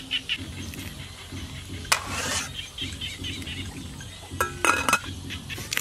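Aluminium cooking pot's lid being handled: a sharp knock about two seconds in, then ringing metal clinks shortly before the end as the lid knocks against the pot rim.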